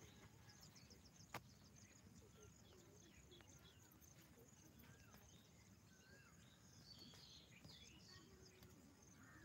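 Near silence: faint ambience with scattered faint bird chirps, and one sharp click about a second and a half in.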